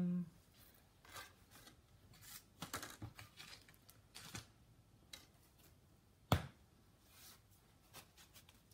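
Hands rummaging through craft supplies on a table: scattered small rustles and clicks, with one sharp knock a little over six seconds in.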